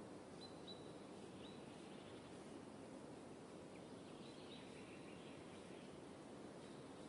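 Very quiet forest ambience: a steady low hiss with a few faint, short, high bird chirps, a couple in the first second and a half and a few more just past four seconds in.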